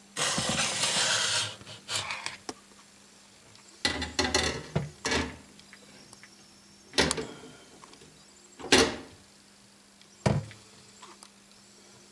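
Glass terrarium front sliding in its metal track: a long scraping rattle about a second long, then several shorter scrapes and knocks.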